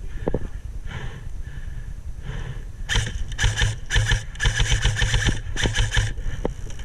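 Airsoft guns firing on full auto in several rapid rattling bursts over about three seconds, after a few single sharp shots.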